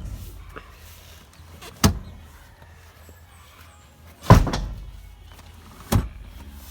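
Three sharp knocks, about two seconds apart, the middle one loudest and dying away over about half a second.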